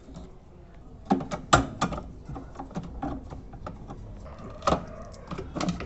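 Irregular sharp clicks and knocks of a 10 mm wrench and loosened parts on the underside of a washing machine as its bolts and clamps are undone. The loudest knocks come a little over a second in and again near the end.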